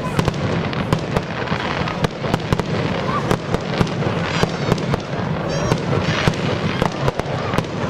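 Fireworks display: aerial shells bursting with many sharp bangs and pops in quick, irregular succession over a continuous rumble.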